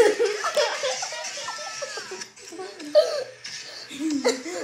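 A child giggling and laughing, the voice rising and falling, with a louder sharp sound about three seconds in and another near the end.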